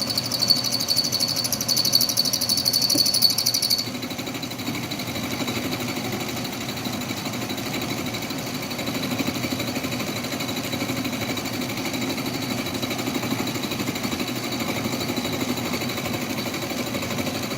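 Roughing end mill cutting metal in a shop-made milling attachment on an Atlas metal lathe, rattling hard as the cutter deflects about 2 thou. About four seconds in the harsh high rattle cuts off abruptly, and the lathe keeps running with a steadier, quieter cutting sound.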